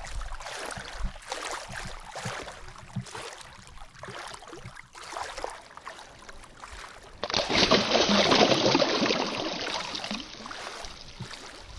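Light lapping and trickling of shallow lake water, then a sudden loud splash about seven seconds in as a released bass kicks out of a hand and swims off. The splashing trails off over the next few seconds.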